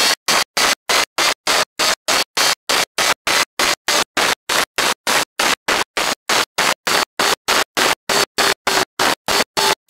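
Onboard sound of a Kawasaki ZZR1400 at track speed: a broad rush of wind with the inline-four's engine note underneath. The sound is chopped into short pieces by dropouts about four times a second, a fault in the recording's audio.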